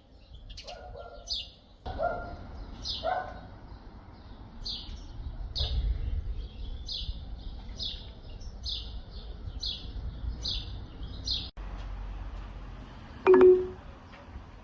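A bird chirping over and over, a short high chirp about every half second, over a low rumble. About 13 seconds in, a brief, loud pitched call or honk stands out above everything else.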